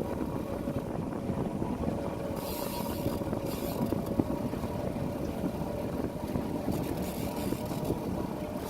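A boat's motor running steadily, a low rumble with a thin steady whine, and a brief hiss about two and a half seconds in.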